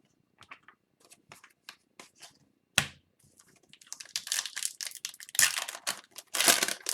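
Trading cards being handled with soft flicks and rustles, a sharp tap near the middle, then a foil hockey card pack being torn open and its wrapper crinkled and crumpled.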